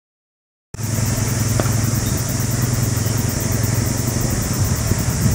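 Silence, then under a second in a steady outdoor background cuts in suddenly: a low, even drone like a running engine, under a steady high hiss.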